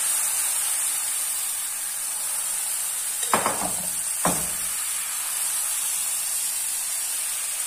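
Crêpe batter with chopped vegetables sizzling steadily in a nonstick frying pan greased with margarine. About three and four seconds in, the spoon spreading the batter knocks against the pan twice.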